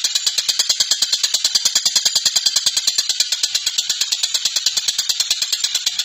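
A tengkek buto (Javan kingfisher) calling in a rapid, unbroken rattle of sharp, high notes, about ten a second.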